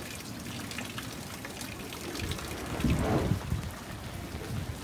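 Steady rain falling on standing floodwater and wet paving, a dense patter of drops. About three seconds in, a louder low rumble rises over it for about a second.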